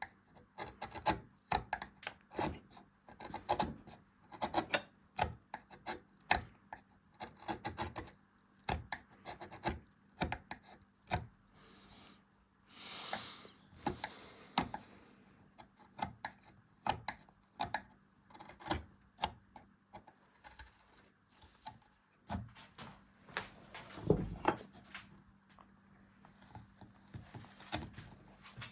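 Hand carving tool scraping and cutting into beech wood in short, irregular strokes, one to three a second, with a longer hissing rub about halfway through.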